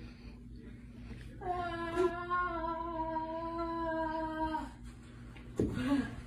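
A voice holding one steady hummed note for about three seconds, then a short rising cry near the end.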